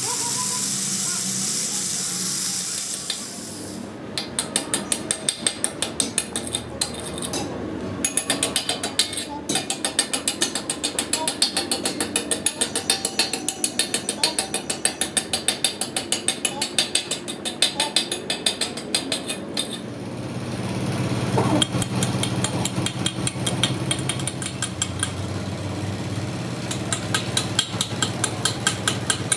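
Metal being struck rapidly with a hammer, an even run of about four to five blows a second with a couple of brief pauses. About two-thirds of the way in, a low steady hum joins the blows.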